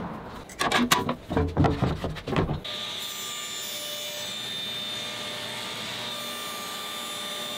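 A few knocks and rubs of wood being handled on the table saw. Then, from about two and a half seconds in, the steady whir of the table saw's running blade as it cuts through the plywood base of a crosscut sled, lengthening the kerf.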